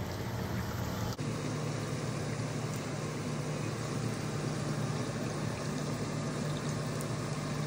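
Onion fritters frying in hot oil in a cast-iron skillet, a steady sizzle over a steady low hum, with a brief break about a second in.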